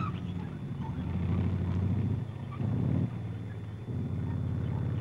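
Light tank engine running steadily. About two seconds in the note breaks and swells briefly, then drops quieter for under a second before picking up again as the driver changes gear.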